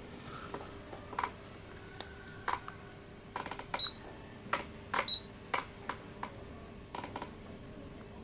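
A string of sharp, irregularly spaced clicks, some in quick clusters, with two brief high beeps near the middle, over a faint steady hum.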